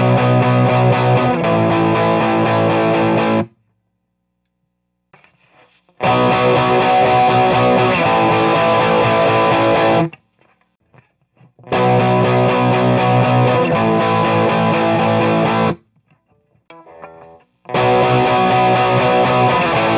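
Electric guitar power-chord riff from a Les Paul Standard with BurstBucker pickups, played through the high treble channel of a Marshall model 1987 50-watt clone into a close-miked 4x12 cabinet. The riff is heard four times, each about four seconds long, with short silent pauses between. Each pair of takes compares the amp's bright cap switched off and then on.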